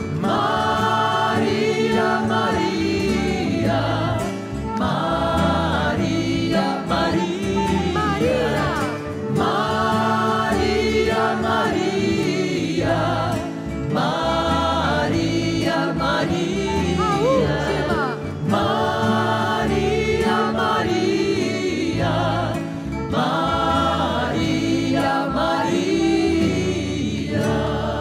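Choir singing a Marian hymn, phrase after phrase, over held low accompanying notes.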